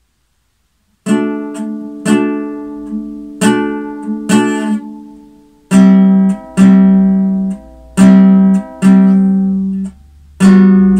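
Acoustic guitar played slowly, one stroke at a time, while a song is being practised. After about a second of silence come a few chords that ring and fade, then from about halfway a run of louder notes, each held for about a second and cut short.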